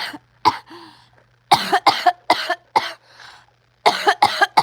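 A person in a coughing fit: one cough, then a run of four harsh coughs, a pause with a faint breath, and three more near the end.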